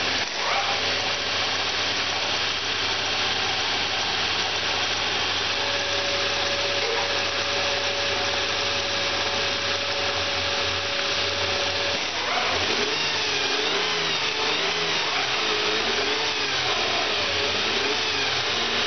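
2005 Nissan Altima's 3.5-litre V6 engine (VQ35DE) running steadily under the open hood, in an engine test that it passed. A wavering whine joins in about two-thirds of the way through.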